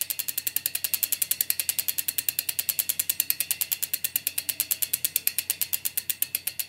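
Bicycle rear-hub freewheel ticking as the wheel spins without pedalling: a fast, even run of clicks, about a dozen a second.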